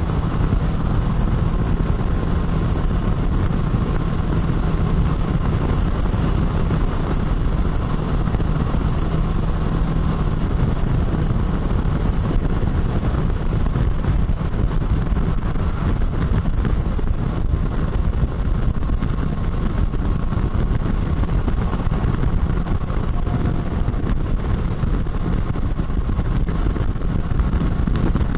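Kawasaki Versys 650's parallel-twin engine running at a steady highway cruise, mixed with wind and road noise, as heard from on the bike. The low engine note eases a little about ten seconds in.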